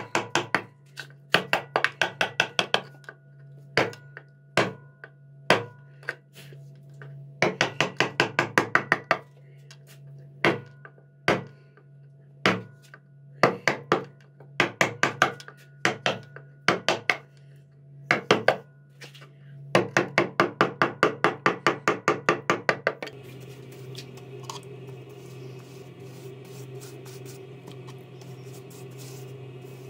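Carving chisel being struck in quick runs of sharp taps, with single taps between, as it cuts the outline of a design into walnut. About two-thirds of the way through the tapping stops and a soft, steady brushing follows as a clear finish is brushed onto the carving.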